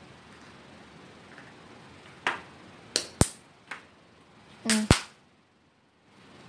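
About six sharp taps and slaps, bunched midway through: a child's hands patting large cardboard floor-puzzle pieces into place on a foam play mat.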